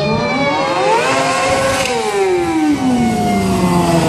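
Sportbike engine revving: its pitch climbs for about a second to a peak, then drops back down over the next second.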